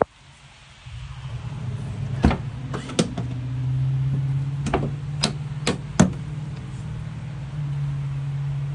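Van doors being worked: a click right at the start, then a run of about six sharp latch and handle clicks and clunks as the rear door is opened. Under them is a steady low hum that starts about a second in.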